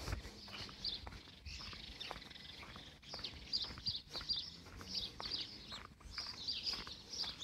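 Small birds chirping in quick, repeated short calls, over the steady footsteps of someone walking on a paved pavement, about two steps a second.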